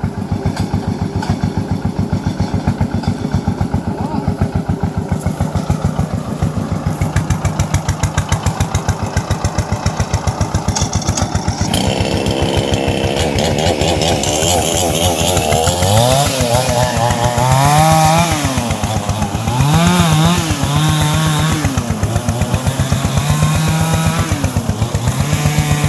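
An old walking tractor's single-cylinder engine running with a steady, fast firing beat; from about halfway through its speed rises and falls again and again as it is driven.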